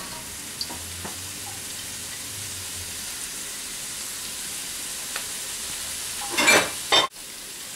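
Vegetables sizzling in hot oil in a wok as they are stir-fried: a steady frying hiss. A brief louder sound rises over it about six and a half seconds in, followed by a sudden momentary break.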